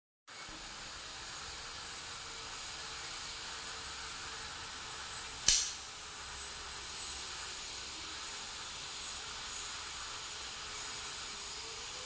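CRKT Butte folding knife flicked open on its IKBS ball-bearing pivot, the blade locking into its Deadbolt lock with one sharp click about five and a half seconds in, over a steady hiss.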